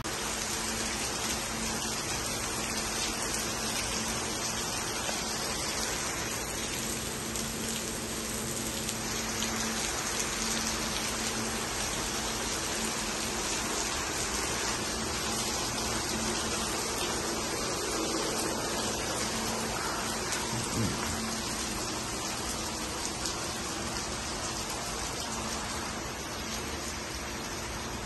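Steady rain falling on trees and a wet cobbled street, an even hiss that holds at the same level throughout.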